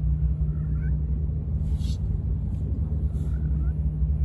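Steady low rumble with two faint, short cat mews, one about half a second in and one about three seconds in.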